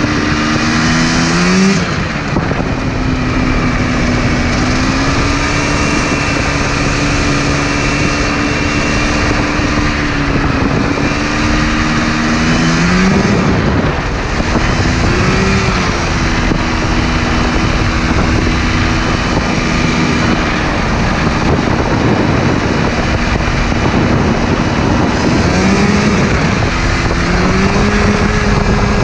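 Yamaha Phazer snowmobile two-stroke twin engine running hard in a go-kart under way. The pitch holds mostly steady, with quick rises and drops at about 1 s, 13 s and 15 s, and a step up at about 26 s that holds to the end.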